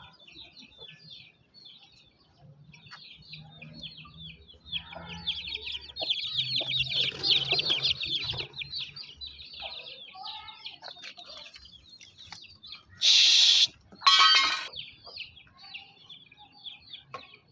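Chickens: a flock of chicks peeping rapidly and continuously, busiest about halfway through, with hens clucking low. Near the end come two loud harsh squawks, a second apart.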